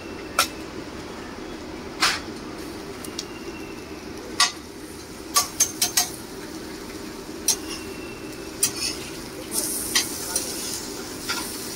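Metal spatula striking and scraping on a flat iron street-food griddle (tawa) in about ten sharp clinks, several in quick succession around the middle, over a steady background hum. A sizzling hiss rises near the end.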